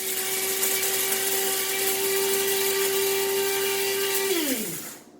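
Hamilton Beach electric coffee grinder running, grinding whole coffee beans with a steady motor whine. A little over four seconds in it is switched off and winds down, its pitch falling away.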